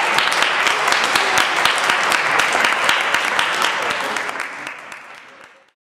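Applause from a small audience, many hands clapping densely, fading out over the last two seconds to silence.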